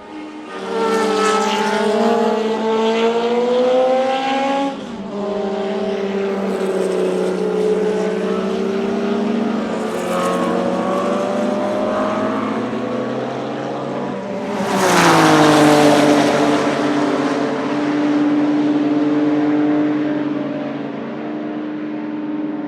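Porsche 935 K3 race car's twin-turbocharged 3.2-litre flat-six running hard: the pitch climbs, breaks at a gear change about five seconds in and climbs again. About fifteen seconds in it passes loudly, its pitch dropping, then holds a steadier lower note.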